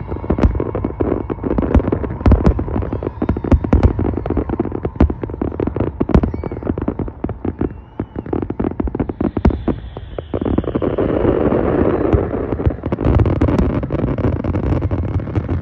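Aerial fireworks display: a rapid, dense run of cracks and bangs from many shells bursting. About two-thirds of the way through it gives way to a steadier, rumbling wash of noise.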